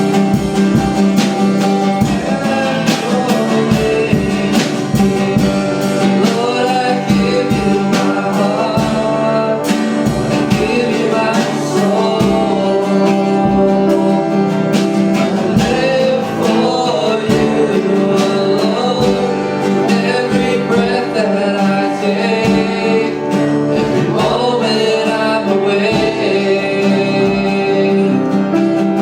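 Worship song: singing over guitar and a steady beat.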